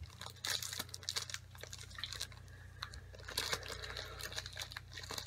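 Plastic Hostess Zingers wrapper crinkling and crackling in quick, irregular little clicks as it is pulled open and handled to get the cake out.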